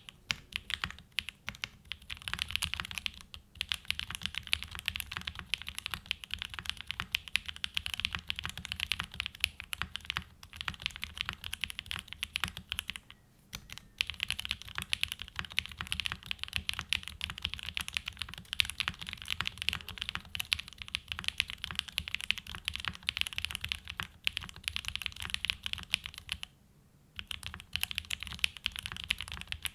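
Mechanical keyboard being typed on fast and continuously: a Tofu65 2.0 with a polycarbonate plate, case and mid foam, hand-lubed Gateron Summertime switches and GMK Olive keycaps. The keystrokes stop briefly about halfway through and again near the end.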